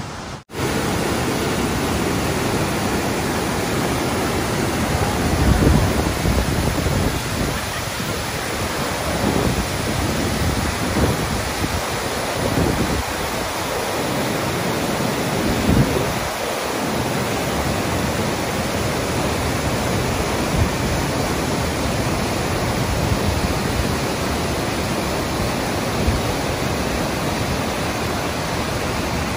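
Steady rush of Blakiston Falls pouring through a narrow rock gorge. Low rumbles of wind buffet the microphone now and then in the first half.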